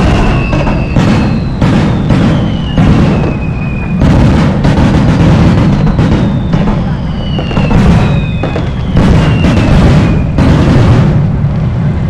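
Fireworks display: a rapid barrage of bangs over a continuous low rumble, with several whistling shells whose pitch falls as they go.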